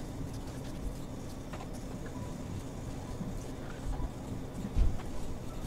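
Quiet room tone: a steady low electrical hum from the recording setup, with two soft low thumps about four and five seconds in.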